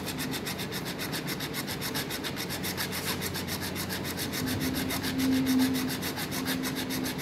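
Steel blade scraping back and forth over bare skull bone in rapid, even strokes, scoring the outline along which the skull cap is to be cut. A low steady hum joins in during the second half.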